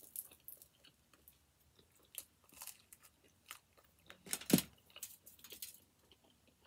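Close-up chewing of pizza crust: wet mouth clicks and light crunching in short irregular bursts, with a louder crunch about four and a half seconds in.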